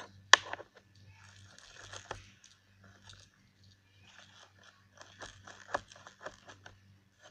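Slime being rolled and pressed with a small plastic roller on a plastic tray: a sharp plastic click about a third of a second in, then scattered sticky crackling and clicks, with a busier run of clicks around five to six seconds in.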